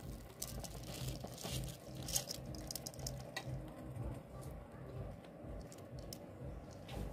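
Rice being poured into a pot of bubbling chicken stew and water, the grains pattering into the liquid, with scattered short clicks over a low, steady rumble.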